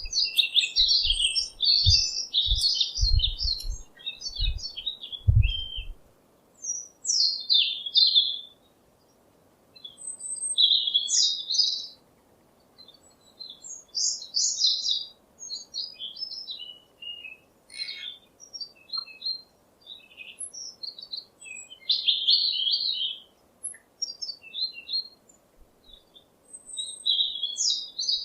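A songbird singing in short phrases of quick chirps and trills, with brief pauses between phrases. Low thumps sound during the first six seconds.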